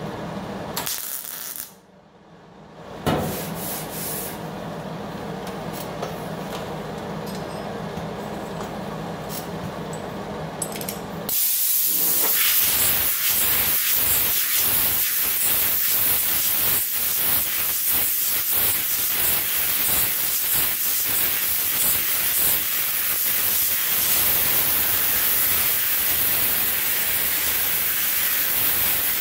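Air-powered hand tool running with a loud steady hiss and a fast rasping as it works along a welded body-panel seam, starting about eleven seconds in. Before that there is a quieter steady hum, broken briefly near the start.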